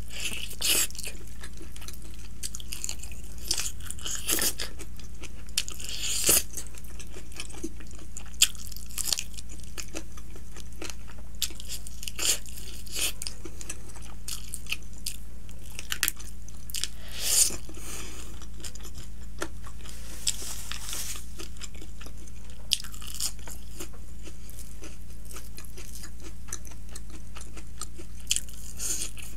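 Close-up mukbang eating of a crispy fried chicken drumstick: bites and chewing, with irregular crunches of the fried coating. A steady low hum runs underneath.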